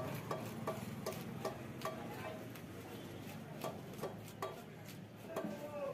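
Rasping strokes of a serrated hand scaler scraping the scales off a large rohu, about three strokes a second with a short pause midway.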